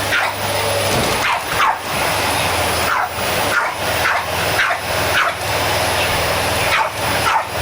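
Vacuum cleaner running with a steady hum while a dog barks at it repeatedly, about nine short barks.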